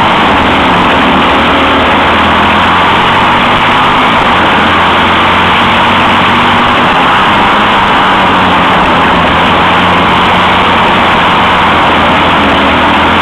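Engine of a dirt-track racing kart running hard under load, heard from a camera mounted on the kart: a loud, steady engine drone with rough noise over it.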